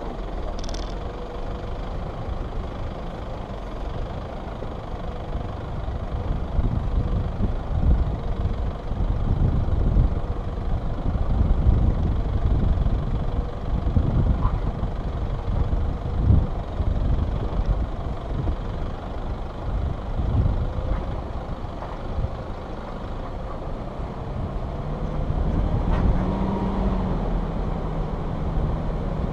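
Toyota Fortuner 4x4 driving slowly over a rough dirt track, heard through a bonnet-mounted camera: a low rumble of engine and body with irregular thumps as the vehicle jolts over rocks, and the engine note rising slightly near the end.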